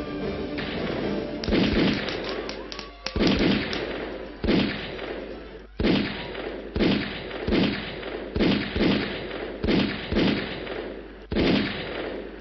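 Staged gunfire in a play shootout: a dozen or so sharp bangs at uneven spacing, about one a second, each trailing off in a falling ring.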